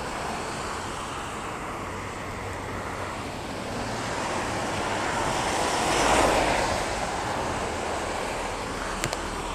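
Steady hiss of rain and wet road, with a vehicle swishing past on the wet road, swelling to its loudest about six seconds in and fading away.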